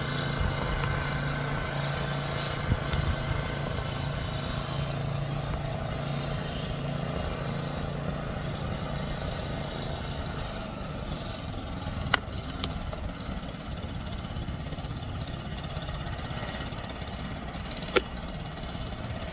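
A steady engine hum over constant street noise, fading through the first half, with two short sharp clicks later on.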